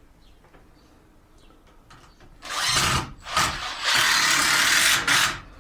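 Power drill driving a screw into wood in four spurts of the trigger, starting about two and a half seconds in. The longest run is about a second, near the end.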